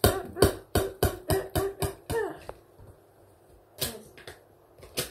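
A rapid run of about eight sharp knocks, roughly four a second, as a DVD is struck and smashed, then a few scattered clicks and knocks near the end.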